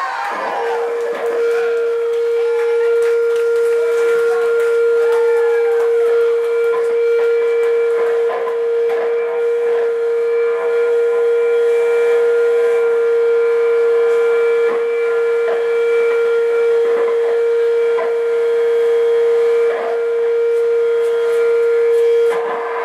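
A single loud, steady howling tone of amplified electric guitar feedback, held for about twenty seconds over faint stage clatter. It cuts off suddenly near the end, and a few sliding tones sound in the first seconds.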